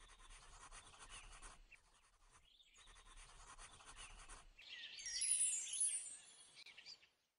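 Pencil scratching on paper in two short stretches, as when writing words by hand. Near the end comes a louder, higher sound with falling tones, then it stops.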